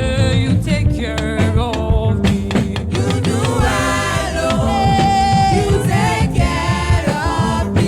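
Gospel praise music: voices singing together over a band, with drums keeping a steady beat.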